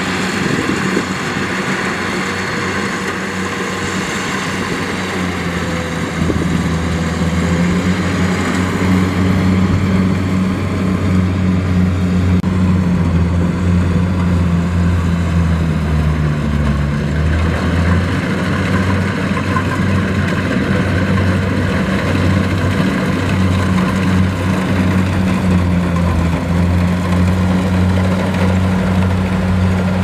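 Kubota DC-70 combine harvester's diesel engine running steadily under load while the machine cuts rice on its tracks through mud. It gets louder about six seconds in, and its pitch dips briefly midway.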